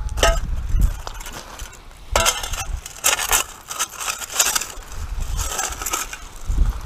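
A perforated metal sand scoop digging into beach gravel: repeated crunching scrapes with stones clinking against the metal, starting about two seconds in.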